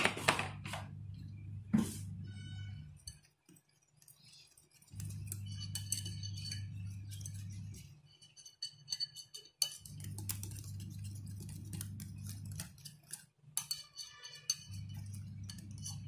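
Wire whisk beating a thick egg and gram-flour (besan) batter in a glass bowl, the wires clicking and clinking rapidly against the glass. A low hum comes and goes in stretches of two to three seconds underneath.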